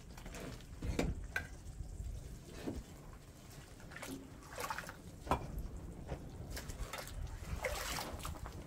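Hands scooping dry white powder from a paper sack into a metal basin: irregular scrapes, rustles and light knocks, with some water sloshing in a basin.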